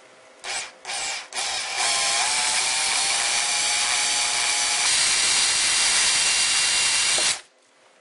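Cordless drill boring a hole through a sheet-metal motherboard plate from a server case: two short blips of the trigger, then a steady run of about six seconds that cuts off suddenly.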